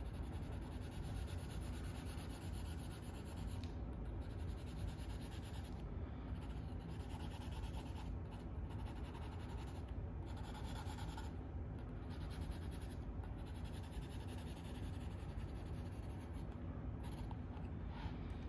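A drawing tool scratching and rubbing across sketchbook paper in a run of strokes, with short pauses every second or two where the tip lifts off the page.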